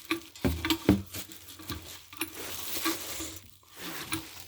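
A boxed ceiling fan's parts and packaging being handled and lifted out: rustling with several light knocks and clatters, the loudest about a second in.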